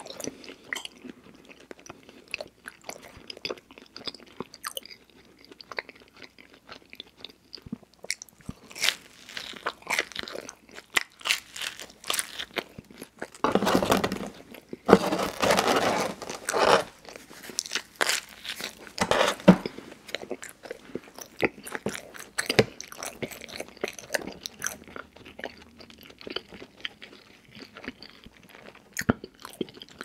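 Close-miked chewing and biting of cheese pizza and crust, with many small crunches and wet mouth sounds. A louder, denser stretch of crunching and tearing comes about halfway through, as the bready crust ring is broken apart by hand.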